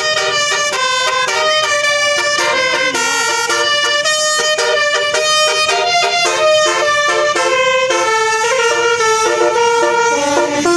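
Basuri telolet bus horn playing a melody: loud, clear horn notes stepping up and down in pitch, a few notes a second, without a break.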